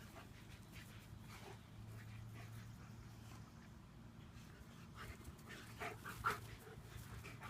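Dog panting softly in quick, even breaths over a low steady hum. A few louder short sounds come about five to six and a half seconds in.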